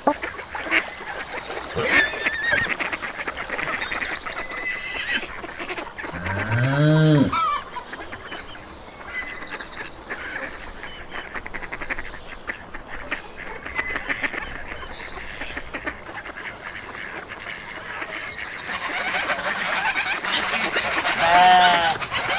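Farmyard animal ambience: domestic geese honking among a busy background of other fowl and bird calls. About six seconds in comes a loud, low, drawn-out call that rises and falls, and another arched call follows near the end.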